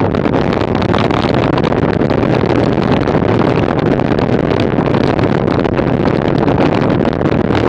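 Steady wind noise buffeting the microphone of a bicycle-mounted camera riding at about 30 km/h, mixed with the hum of tyres rolling on asphalt.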